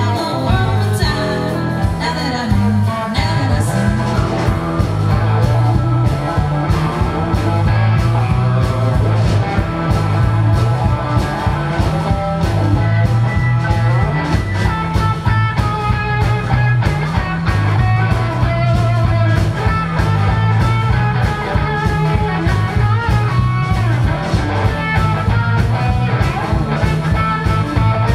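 Live rock and blues band playing with electric guitars, keyboard and drums on a steady beat, a woman singing lead.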